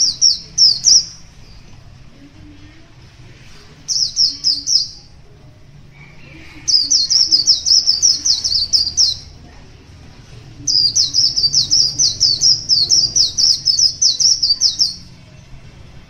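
A caged white-eye singing in fast, high twittering phrases. There are two short bursts of a few notes, then two long runs of rapid notes lasting several seconds each.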